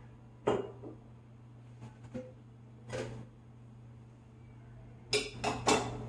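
A spoon and ceramic bowls knocking and clinking as they are handled: single knocks about half a second in and about three seconds in, then a quick run of louder knocks near the end as bowls are set down and stacked. A steady low hum runs underneath.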